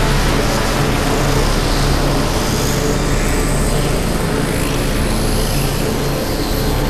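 Experimental electronic music: a dense, steady wash of noise over held low tones, with high gliding tones sweeping across it from about two seconds in.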